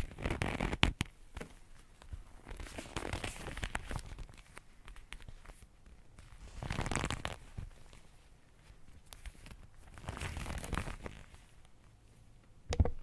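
Leather being stretched, in four drawn-out bursts a few seconds apart, each a rough, scratchy strain with small clicks, and a short sharp burst just before it cuts off.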